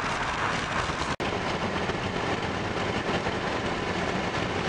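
Steady road and wind noise heard inside a moving car's cabin. It drops out for an instant about a second in.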